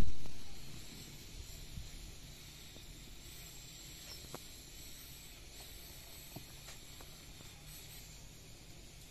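A loud low thump at the very start, fading over about a second, then a steady hiss with a few faint sharp ticks from a knife cutting a vegetable held in the hand.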